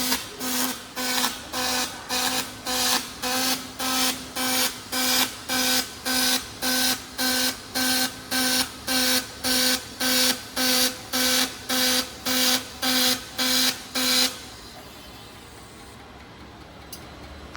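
Robotic MIG arc welding in short on-off bursts, about two a second, each a buzz with a crackling hiss, as in stitch welding. The bursts stop about three seconds before the end, leaving a faint steady hum.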